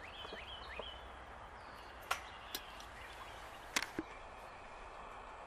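Faint outdoor quiet with a few quick birdlike chirps in the first second, then several sharp clicks around two and four seconds in, likely a metal tape measure knocking against the kennel's galvanized steel top bar.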